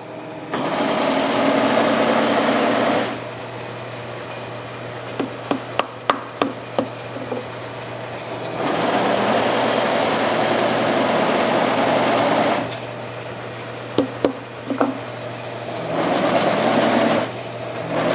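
Kearney & Trecker horizontal milling machine running with a steady hum while a toothed slitting saw cuts into a CPVC plate, the cutting noise swelling loud in long stretches as the plate feeds through. A few sharp clicks sound in the quieter gaps between.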